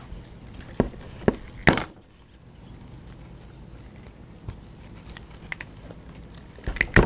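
Serrated edge of a Leatherman Wingman's combo blade sawing at thick plastic hay-bale twine: a few sharp clicks and snaps about a second in and again near the end, with quiet scraping between.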